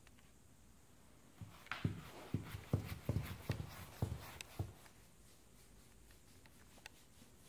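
Rustling and a run of soft thumps as a hand rubs a dog's fur against a leather sofa, starting about a second and a half in and lasting about three seconds before it settles back to quiet.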